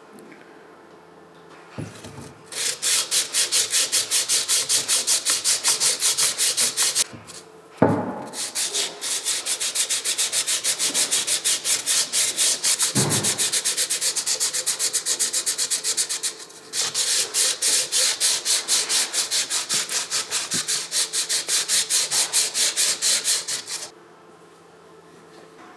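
Rapid back-and-forth abrading strokes on an alternator part, worked by hand at a few strokes a second in three long bouts with short pauses about 7 and 16 seconds in. A knock sounds as the second bout starts.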